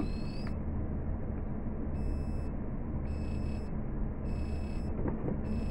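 An electronic beep that sounds about once a second, each beep lasting about half a second, over a steady low hum.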